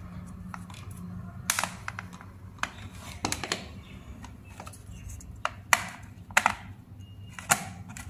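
Sharp plastic clicks and knocks from a three-pin mains plug being handled and pushed into a wall socket, about eight separate clicks spaced irregularly, over a low steady hum.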